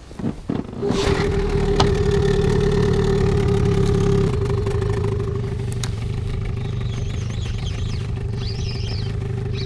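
A boat's outboard motor starts about a second in and runs steadily, easing off slightly about four seconds in.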